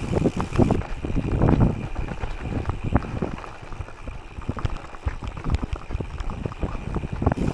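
Gravel bike rolling over a loose, rocky dirt track: tyre crunch and rumble with frequent knocks and rattles as it bounces over stones. The jolts are heaviest in the first couple of seconds and ease off in the middle.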